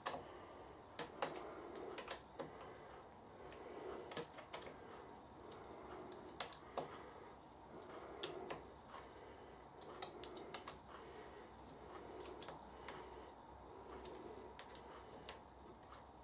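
Scattered light metal clicks and taps of a small screwdriver working the screws of a bearing retaining plate on a milling machine's spindle housing, irregular and faint.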